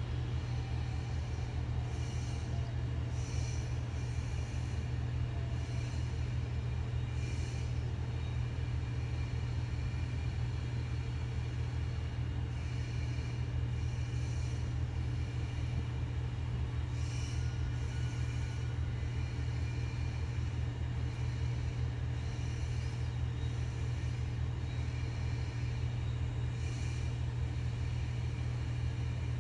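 EF64 1000-series electric locomotive's blowers running: a steady low hum with fainter steady higher tones, and brief faint hisses now and then.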